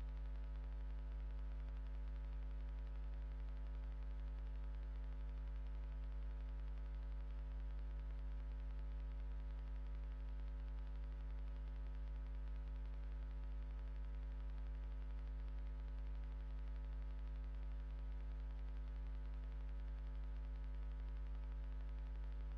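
Steady electrical mains hum with a stack of higher overtones over faint hiss, unchanging, with no other sound on top.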